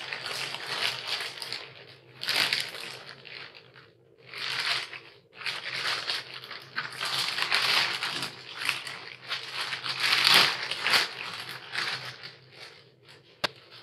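Packaging being unwrapped by hand: crinkling and crumpling in irregular bursts, with short pauses about four and five seconds in and a single sharp click near the end.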